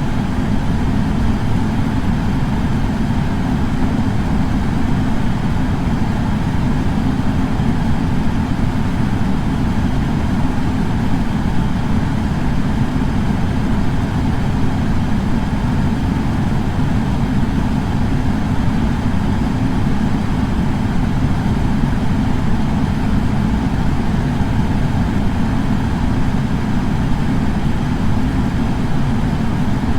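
Air purifier fan running steadily: an even, low-pitched rush of air that does not change.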